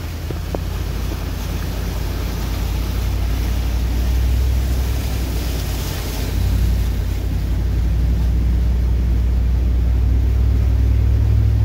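Vehicle driving into floodwater covering the road, heard from inside the cabin: a steady low rumble with a rushing wash of water that rises briefly about halfway through.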